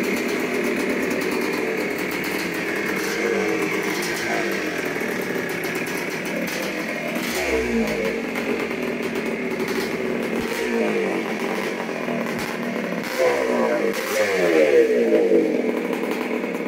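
1981 Yamaha YZ250's single-cylinder two-stroke engine running on a freshly rebuilt top end, its throttle blipped every few seconds so the revs rise and fall back to idle.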